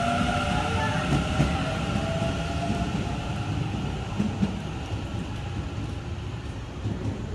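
Hanshin 1000 series electric train pulling away. Its Mitsubishi two-level IGBT VVVF inverter gives a whine that rises in pitch as the train accelerates and fades out within the first few seconds, under a low rumble of wheels on rail that grows quieter as the train recedes.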